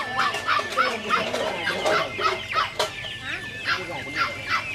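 Chickens clucking, many short calls in quick succession, several birds at once.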